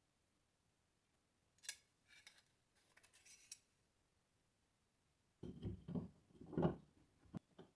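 A sharp hand plane blade taking a thin shaving: a sharp click, then a faint, high, scratchy hiss of the cut. About two seconds later come a few dull knocks of wood and the plane being handled.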